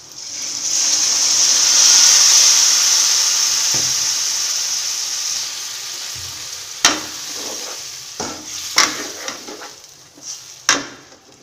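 Water poured into hot fried onion-tomato masala in a kadhai: a loud sizzle that starts suddenly, swells and then slowly dies away as the water takes the heat. A spoon knocks against the pan a few times while it is stirred.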